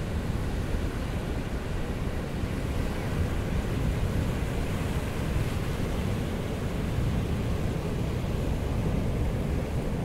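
Pacific Ocean surf washing onto a sandy beach, a steady rushing noise, with wind on the microphone adding a low rumble.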